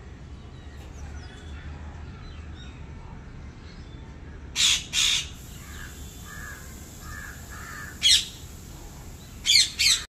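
Rose-ringed parakeets calling: five loud, short, shrill screeches, a pair about halfway through, one near the end and a quick pair at the close, with softer chattering notes in between.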